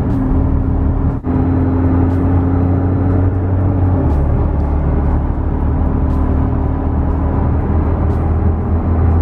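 Engine drone and road noise inside the cabin of a McLaren sports car cruising at about 43 mph. The pitch of the drone drops about four seconds in.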